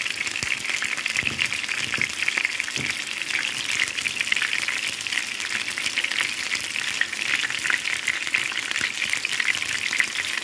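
Hot oil sizzling steadily in a frying pan with many small crackles as a blended chicken and squash stick pan-fries.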